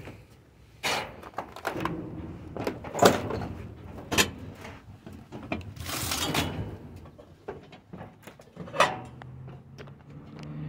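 Scrap being shifted by hand in a steel dumpster: metal studs, wood and debris clatter, with a few sharp knocks and a longer scrape about six seconds in as a cable is dragged out.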